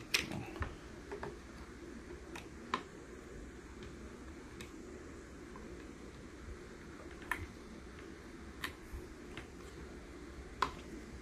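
A hex driver turning a small screw out beside the motor of a 1/10 RC monster truck: scattered light metal ticks and clicks, irregularly spaced, over a faint steady low hum.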